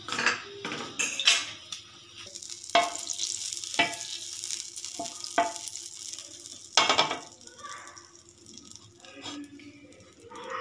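Butter melting and sizzling on a hot flat griddle pan (tawa), with a handful of sharp knocks and scrapes against the pan as it is spread. The sizzle dies down in the last few seconds.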